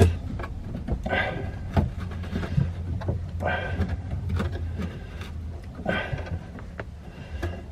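Heavy breaths of exertion and small knocks and scrapes as a pipe coupling is worked onto a drain pipe, over a steady low hum.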